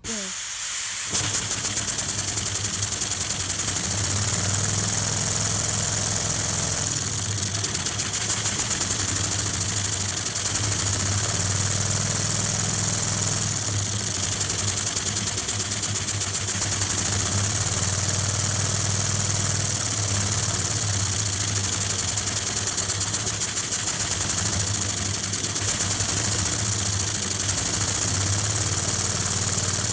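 3D-printed compressed-air engine running on about 70 psi, a rapid, even puffing of exhaust air over a steady hiss. It starts suddenly and then holds a steady speed.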